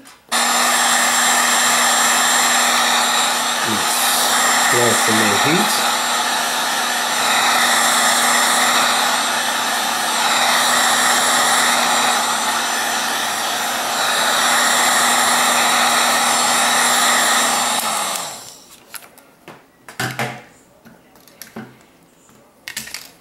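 Heat gun running with a steady blowing hum, heating the edge of an iPad Air 2 to loosen its fused glass-and-LCD screen from the back panel. It switches off about eighteen seconds in, and a few light handling clicks follow.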